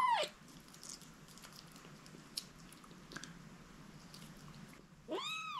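Young kitten meowing: a high cry falling away in the first moment, then a second rising-and-falling meow near the end. In between, faint small clicks and rustles as she is handled on the rug.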